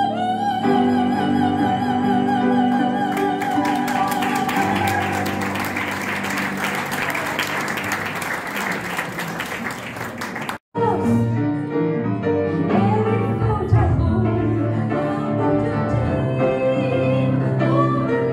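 A mezzo-soprano holds a long final note over the piano, and the audience applauds for several seconds. The sound cuts off abruptly, then grand piano and mezzo-soprano voice resume with the next song.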